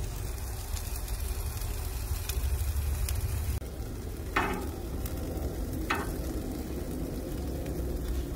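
Chicken leg quarters sizzling on the grate over a charcoal fire, a steady hiss with a low rumble underneath. Two short sharp pops come about halfway through.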